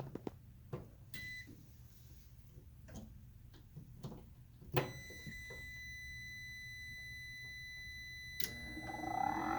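A high electronic beep sounds briefly about a second in, then holds steadily from about halfway through, with light clicks between. Near the end a furnace's inducer fan motor starts, its whine rising as it spins up.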